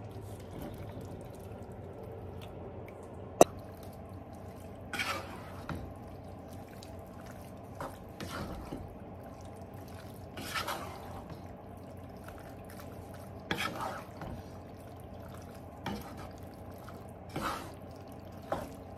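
Cooked penne being stirred into a pan of ground-beef sauce with a wooden spoon: wet squelching scrapes every two or three seconds, with one sharp knock about three seconds in, over a low steady hum.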